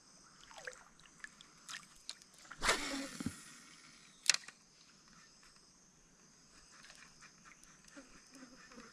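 Steady high-pitched buzzing of forest insects, with a brief rustling burst about two and a half seconds in and a single sharp knock about four seconds in.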